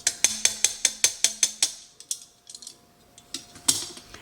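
A utensil clicking against a mixing bowl as the chicken filling is stirred: quick, even clicks about four or five a second for the first second and a half, then a few scattered clicks and one sharper knock near the end.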